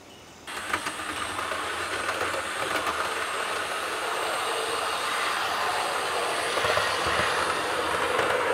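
OO gauge model train running along the track: a steady rattling rush that starts abruptly about half a second in and grows a little louder as the train comes close.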